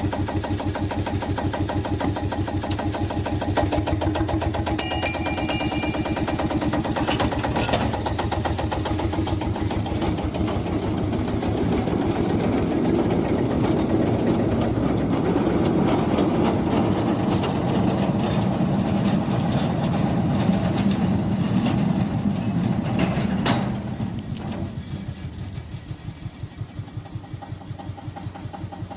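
Small Jung narrow-gauge diesel locomotive's engine running with an even chugging pulse. It grows louder through the middle, then a clunk comes about 23 seconds in and the engine drops back to a quieter idle.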